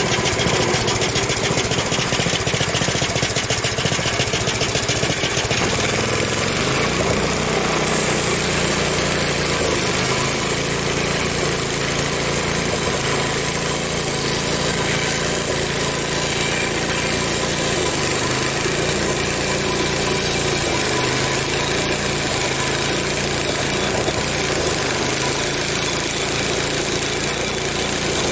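Frontier OS23 portable bandsaw mill running, its gas engine driving the band blade through an ash log. The engine note shifts up and down several times as the load on the blade changes.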